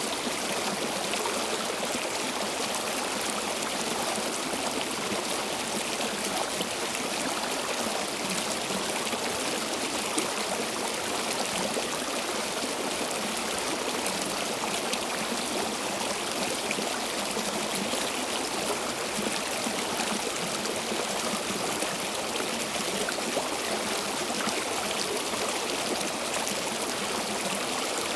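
Stream water flowing steadily, a constant rushing with fine splashing and trickling.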